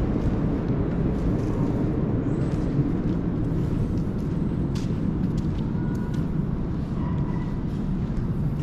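Steady hum of city street traffic, with a few faint short tones about six and seven seconds in.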